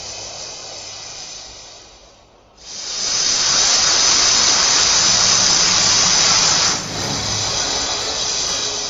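Dragon sound effect: a loud hiss that starts sharply about two and a half seconds in, holds steady for about four seconds, then drops to a quieter hiss.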